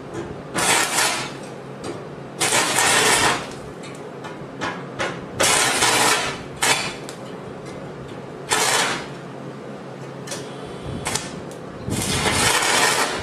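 Wet 6011 stick electrode arcing against thin 14-gauge sheet in short crackling bursts: the arc strikes, sputters for under a second and goes out, then is struck again, about six times with short crackles in between. The arc will not stay lit on the thin metal.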